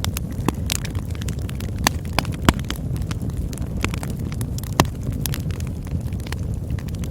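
Campfire burning: a steady low rumble with frequent sharp crackles and pops, the loudest snaps about two seconds in and again near five seconds.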